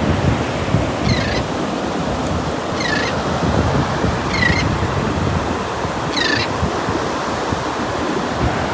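A gull calls repeatedly: about five short, falling squawks roughly every second and a half. Underneath is steady surf and wind rumbling on the microphone.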